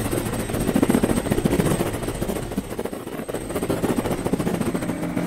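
Cartoon helicopter sound effect: fast, rapidly repeating rotor chopping.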